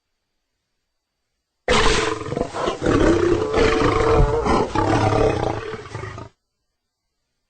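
A single lion roar sound effect that starts sharply about two seconds in, runs for about four and a half seconds, and cuts off abruptly into dead silence.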